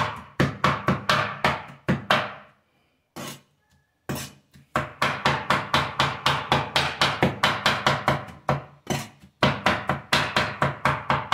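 Large kitchen knife chopping fast on a wooden cutting board through a soft mash of roasted tomato, chilli and garlic: quick even strokes, about five a second, in runs broken by a short pause after about two seconds and another near the end.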